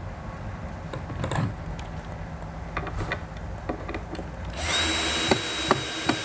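Small clicks and knocks as a screw and drill are set against the wood. Then, about four and a half seconds in, a power drill runs for about two seconds with a steady high whine, driving a screw into the wooden front panel of a bluebird box, and stops at the very end.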